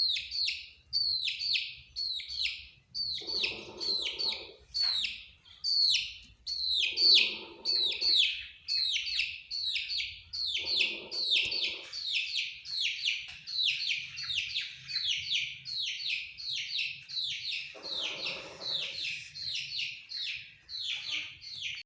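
Young chicken chicks peeping continuously: a fast string of high, downward-sliding peeps, about three to four a second. A few lower sounds, each about a second long, come in several times.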